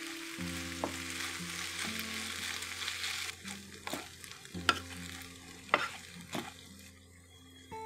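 Macaroni sizzling in oil in a rectangular non-stick tamagoyaki pan as it is stirred with a wooden spatula, which knocks against the pan about five times. The sizzle fades about halfway through.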